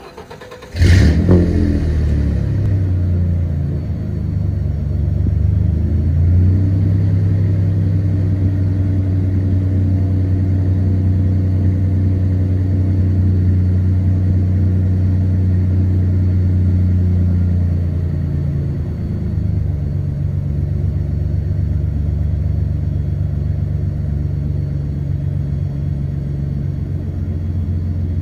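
Ford 4.9-litre (300 ci) fuel-injected inline-six breathing through true dual exhaust with Flowmaster 40 Series mufflers and no catalytic converters. The starter cranks briefly, the engine catches with a loud rev about a second in, then it settles into a steady, deep idle. The idle drops a little lower and quieter about 18 seconds in.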